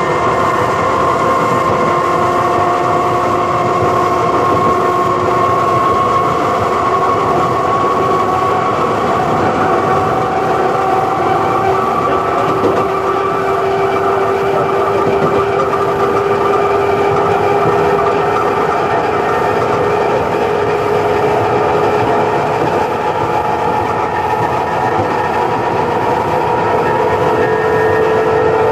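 Wooden-bodied Bradfield electric motor car of Sydney's suburban railway running, several whining motor tones drifting slowly upward in pitch as it gathers speed, over a steady rumble of wheels on the rails.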